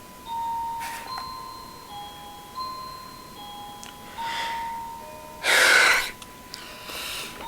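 Background music: a simple melody of held, clear notes. Four short hissing noise bursts cut across it, the loudest about five and a half seconds in.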